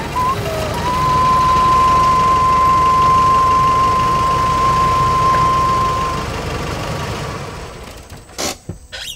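Nissan Navara pickup's engine idling steadily, with one long high steady note held over it for about five seconds. A sharp knock comes near the end.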